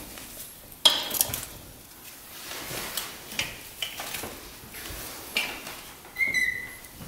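Metal tools and parts clinking and clanking in a series of sharp knocks, with a brief metallic ring about six seconds in.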